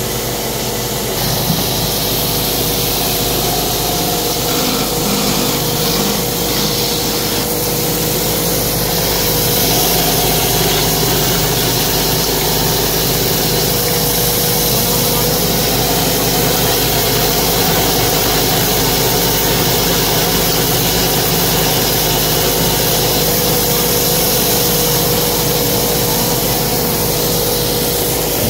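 Motor-driven wood-turning lathe running steadily with a constant hum, and a hand chisel scraping and cutting the spinning wood.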